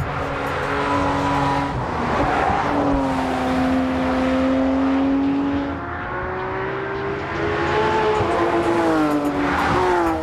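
Ford Mustang Shelby GT350R's 5.2-litre flat-plane-crank V8 running at high revs. Its pitch holds fairly level for a few seconds, then climbs and dips again near the end.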